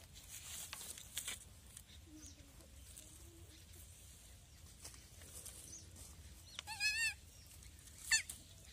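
A young goat kid bleats once, a short quavering call, about seven seconds in. Faint clicks and rustles come before it, and a sharp brief sound follows about a second later.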